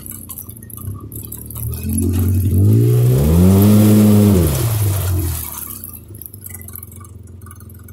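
ATV engine revving up and back down once in the middle, climbing in pitch and then dropping away, with lower engine noise either side.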